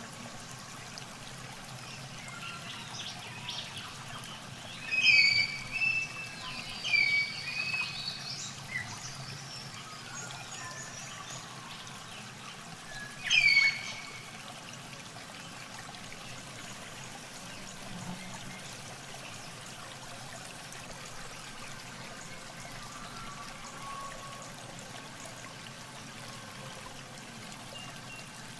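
Water trickling and dripping steadily, with a few short high-pitched calls about five to nine seconds in and one more about halfway through.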